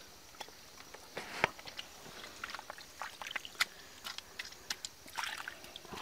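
Wet mud and shallow water being worked around a plastic crate: irregular squelches, small splashes and sharp clicks, with two louder knocks about one and a half and three and a half seconds in.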